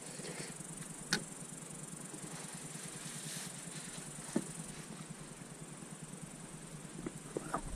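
A few light clicks of a fork against a china plate, about a second in, around four seconds in and near the end, over a steady high-pitched hiss of outdoor background.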